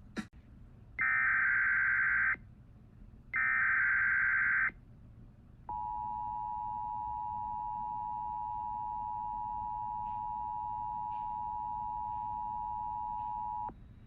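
Emergency Alert System signal: the last two SAME header data bursts, harsh buzzing chirps of about a second and a half each, then the steady two-tone EAS attention signal held for about eight seconds before it cuts off. It heralds a tornado warning.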